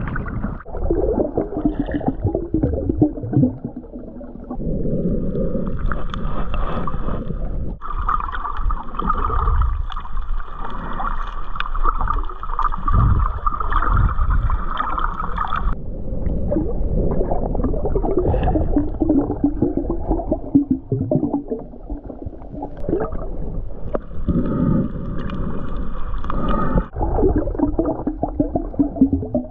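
Underwater sound through an action camera's waterproof housing: muffled water sloshing and gurgling around the snorkeler. A steady high hum comes in for several seconds in the middle and briefly again near the end.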